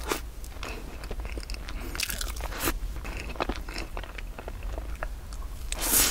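Close-up eating sounds: a person chewing soft, moist rice-flour cake with cream, with many small wet mouth clicks and crackles, and a louder bite near the end.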